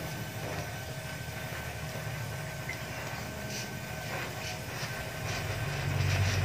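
Arc welding on a steel motorcycle exhaust: the arc crackling and sputtering over a steady low hum, growing louder about five seconds in.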